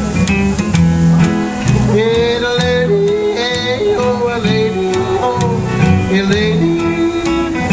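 Live country-blues music: acoustic guitar and plucked upright bass, with a voice holding long sung notes over them.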